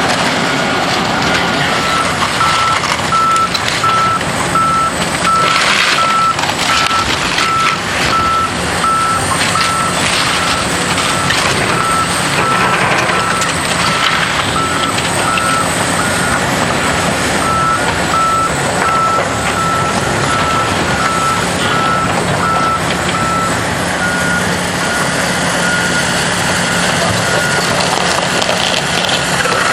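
Backup alarm of heavy demolition equipment beeping in a steady, even rhythm while it reverses, over the running of diesel machinery and the crunching of debris from a building being torn down.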